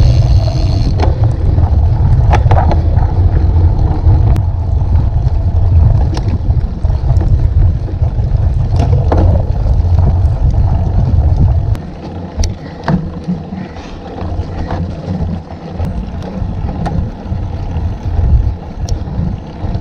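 Mountain bike being ridden fast over a sandy forest trail, heard from a bike-mounted camera: heavy wind rumble on the microphone with irregular knocks and rattles from bumps. About twelve seconds in the rumble drops sharply, leaving the rattling and tyre noise.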